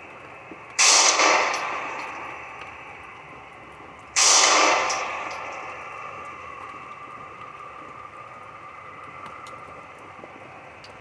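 Semi-automatic pistol firing at an indoor range: a shot about a second in and another about four seconds in, each trailing off over a couple of seconds as it echoes off the range walls.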